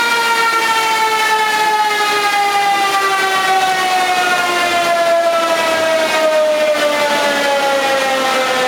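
Mitsubishi Pajero rally car running on a chassis dynamometer: a loud whine with many overtones that falls slowly and steadily in pitch.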